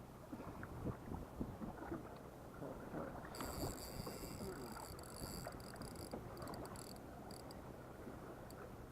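Fishing boat under way: a steady low engine rumble with water and wind noise. About three seconds in, a high thin whine with several pitches starts and breaks up into short flickers, dying out about seven seconds in.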